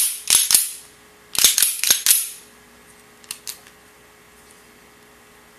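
Freshly reassembled Sig Sauer P238 pistol's slide worked by hand: two quick clusters of sharp metal-on-metal clacks in the first two seconds, then two light clicks about three seconds in.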